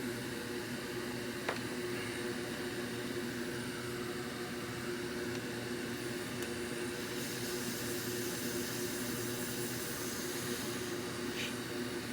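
Fume extractor fan running steadily, a whooshing whir with a low steady hum under it, with a light click about a second and a half in.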